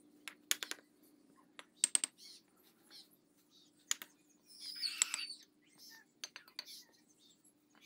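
Sharp clinks and knocks of fired clay bricks being set down and tapped with a hammer, coming singly or in quick pairs and triples. A bird chirps briefly about five seconds in.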